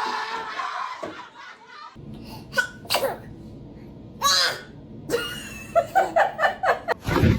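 People sneezing: several short, sharp sneezes, with a run of quick laughter about five seconds in and a loud sneeze near the end.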